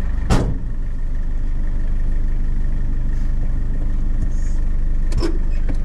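Vehicle engine idling, heard from inside the cab as a steady low rumble. A single sharp knock comes a fraction of a second in, and a few light clicks come near the end.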